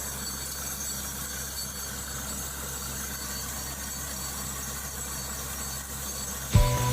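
Steady low engine hum, and near the end a much louder, rhythmic mechanical clatter begins.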